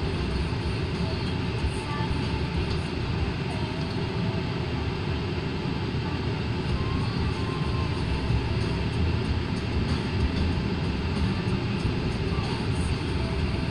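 A long train's cars rolling slowly past, a steady, even noise of wheels on rails with no break.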